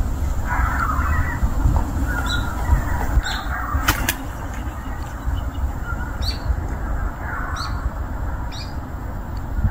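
Small birds chirping: short, high chirps that drop in pitch, repeated about once a second, over a steady low rumble. A single sharp click about four seconds in.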